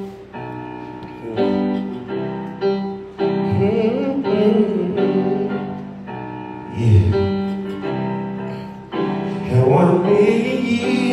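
Singing over sustained keyboard chords, with two sung phrases: one about three and a half seconds in, one near the end.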